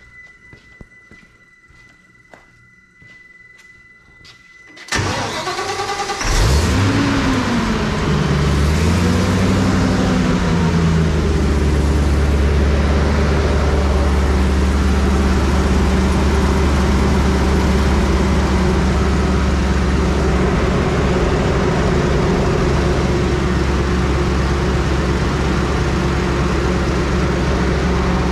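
An electric fuel pump whines steadily as it primes a freshly changed fuel filter. About five seconds in, the Bandit wood chipper's Ford engine is cranked by the starter and catches within a second or so. Its revs swing up and down for a few seconds, then it settles into steady running.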